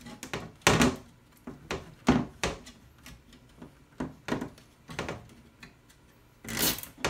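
Nylon cable ties being pulled tight around a plastic power brick in a steel rack-mount tray: a string of short, irregular zips, rasps and knocks, the loudest about a second in, around two seconds in and near the end.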